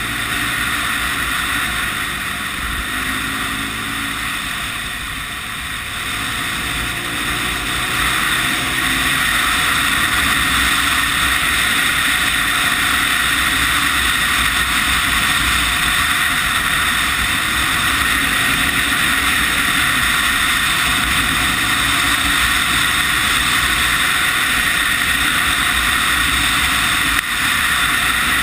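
Honda CB 250 RS single-cylinder four-stroke engine running under way, mixed with heavy wind rush over the microphone. The engine note shifts and eases off a few seconds in, then the sound picks up about eight seconds in and holds steady as the bike rides on.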